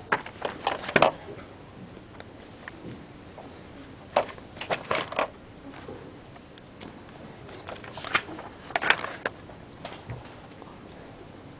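Small plastic spinning top twirled by fingers on a stack of paper, giving three short clusters of light clicks and taps as it knocks against the paper.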